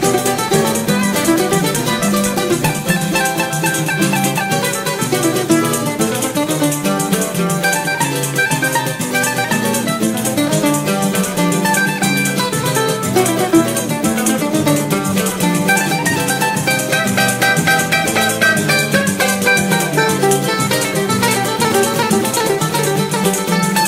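Instrumental choro: a bandolim plays a fast, busy melody over a lower plucked-string accompaniment, with a rattling percussion part keeping a quick, even beat.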